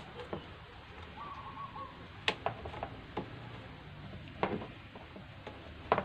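Hard plastic clicks and knocks as a plastic cover is pushed and snapped into place inside a twin-tub washing machine's wash tub, the sharpest about two, four and a half and six seconds in. A bird calls briefly about a second in.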